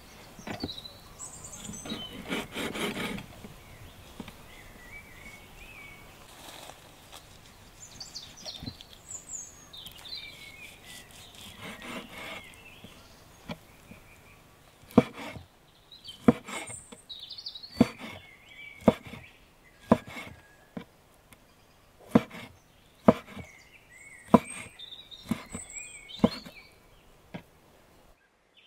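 Knife chopping on a wooden cutting board: a run of single, sharp strokes about one a second through the second half, with birds chirping.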